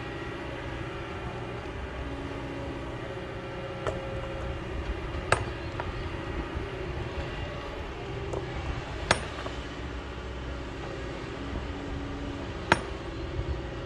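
Kobelco excavator's diesel engine running steadily as it digs into the rocky hillside. About five sharp, ringing clinks, of hard rock or metal being struck, come at irregular intervals; the loudest are near the middle and near the end.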